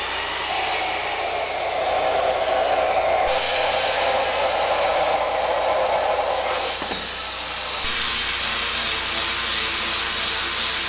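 Abrasive cut-off saw grinding through new steel locomotive boiler tubes: a steady, harsh hiss with a humming whine. About eight seconds in, the hum drops away and a thinner, higher whine carries on.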